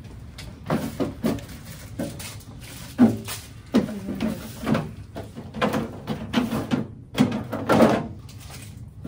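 Irregular rustling and light knocks of cloth and paper being handled as a bib is fitted around a seated patient's neck.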